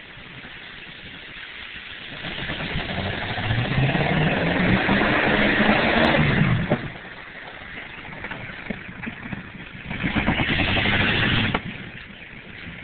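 A 4x4 truck's engine revving up as it drives through mud, the note rising for several seconds and peaking about six seconds in, with the hiss of tyres churning mud over it, then dropping away. A second loud burst of engine and mud noise comes around ten seconds in and stops abruptly.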